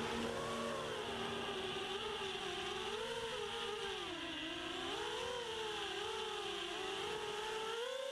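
Quadcopter's brushless motors (SunnySky 2204, 2300 kV, on a 4S battery) whining in flight, the pitch sliding up and down about once a second as the throttle changes.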